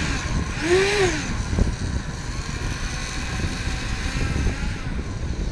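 Twin electric ducted fans of a radio-controlled Su-34 model jet whining on the ground as it taxis. The whine swells twice in the first second or so, then settles steady.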